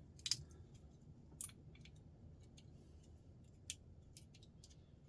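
A few short, sharp clicks of plastic RJ45 connector plugs being handled and worked by hand, the loudest about a third of a second in, with a low hum underneath.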